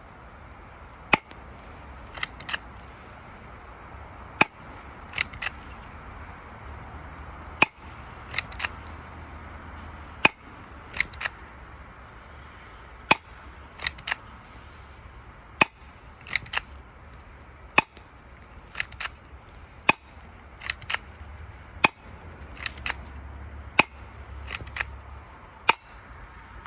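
Spring-powered airsoft pistol fired shot after shot, about eleven sharp snaps two to three seconds apart. Between shots comes a softer double click as the slide is pulled back to re-cock the spring.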